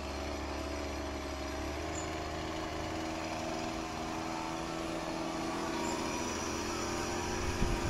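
Chainsaw engine running steadily at an even pitch, with a couple of sharp knocks near the end.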